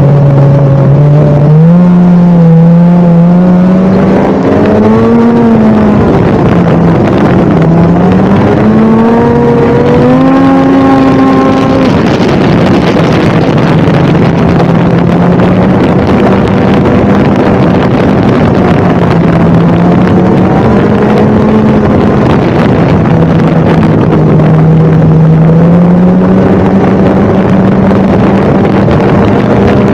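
Snowmobile engine running at speed, its pitch climbing and dropping several times with the throttle, over a steady rushing noise.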